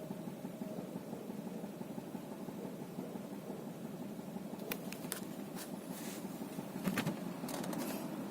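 Ford Zetec-E 2.0 four-cylinder engine running steadily, with a knock that the owner reports along with strong vibration. A few sharp clicks come about five and seven seconds in.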